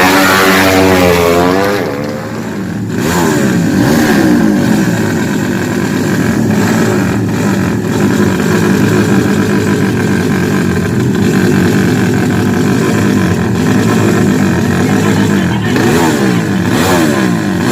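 Tuned drag-racing motorcycle engines revving hard, the pitch sweeping up and down in the first couple of seconds and again near the end, with steady high-revving engine noise in between.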